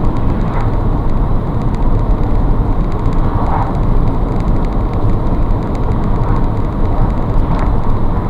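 Steady engine and tyre noise of an ambulance driving at speed, heard from inside the cab.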